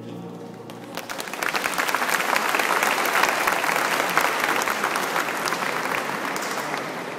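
Audience applauding. A choir's last held note fades out in the first second, then the clapping starts, fills the middle, and thins toward the end.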